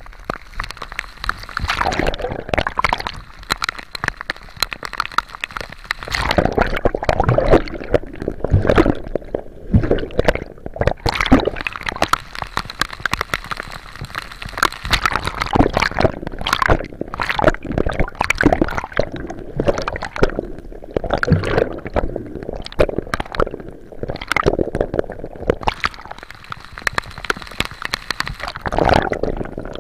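Choppy sea water sloshing, gurgling and splashing around the camera at the surface in a rainstorm, waves washing over it in frequent, irregular splashes.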